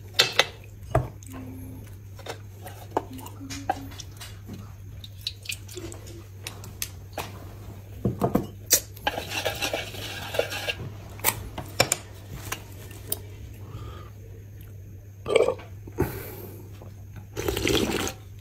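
Chopsticks clicking and scraping against a bowl while eating, with wet slurping of soup, loudest near the end as the bowl is lifted to the mouth to drink. A steady low hum runs underneath.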